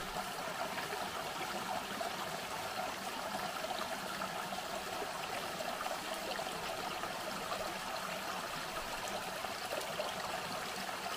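Shallow creek water running and trickling steadily.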